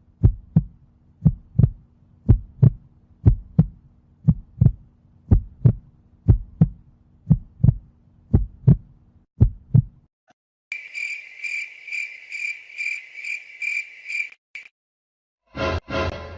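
Heartbeat sound effect: paired low lub-dub thumps about once a second, stopping about ten seconds in. It is followed by a crickets-chirping sound effect, a fast, even, high-pitched trill lasting about four seconds, the classic awkward-silence meme cue. Near the end a short burst of another sound effect begins.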